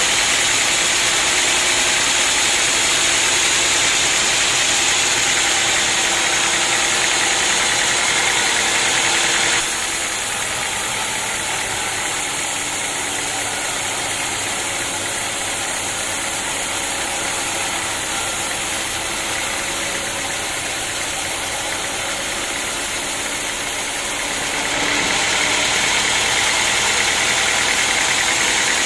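Sawmill machinery running steadily with a dense mechanical noise. The sound drops abruptly about ten seconds in and comes back just as abruptly near the end.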